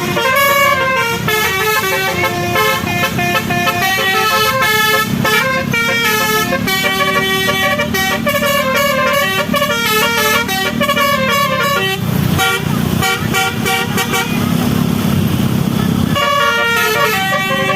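A bus's multi-tone telolet horn playing a tune in quick steps of pitch, over the bus engine running. About twelve seconds in the tune breaks off for some four seconds, leaving a rushing noise and the engine, then it starts up again.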